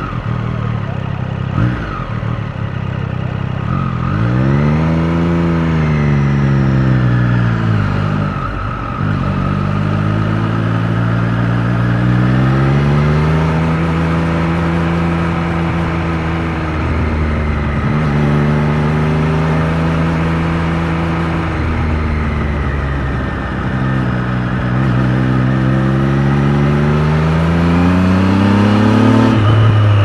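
Triumph Street Triple 765 RS's inline three-cylinder engine, heard from the rider's seat. It runs low and steady for the first few seconds, then the engine note climbs and falls four times as the bike accelerates and eases off.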